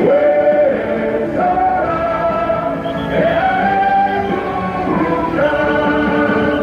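Music: a Korean rally song sung by a choir of voices, in slow notes held about a second each.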